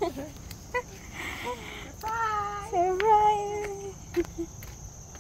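A woman's excited, drawn-out high-pitched squeals of delight, two long wavering cries about two and three seconds in, after a short breathy laugh.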